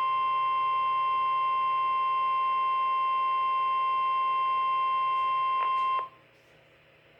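NOAA Weather Radio warning alarm tone, a steady single-pitched tone of about 1050 Hz, heard through a weather radio receiver and cutting off abruptly about six seconds in, leaving faint radio hiss. The tone signals that an emergency warning is about to be broadcast, here a flash flood warning.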